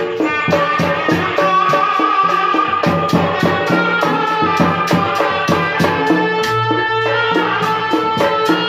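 Live tanji band music for a kuda renggong show: a held melody line over a steady, quick drum beat.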